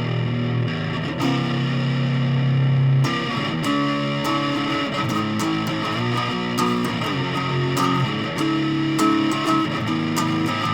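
Ibanez PM100 hollow-body electric guitar played through high-gain distortion: sustained single notes and chords, some notes sliding in pitch.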